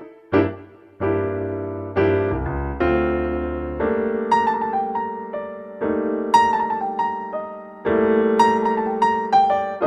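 Background piano music: single notes over held chords, dropping out briefly near the start and picking up again about a second in.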